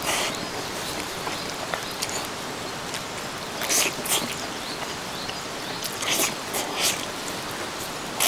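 A person slurping spaghetti in meat sauce eaten with chopsticks: short, loud slurps in small clusters, a pair about four seconds in and three more a couple of seconds later, over a steady hiss.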